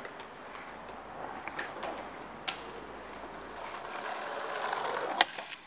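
Skateboard wheels rolling on concrete, growing louder over the last second or so as the board approaches, with a few sharp clacks of the board, the loudest about five seconds in.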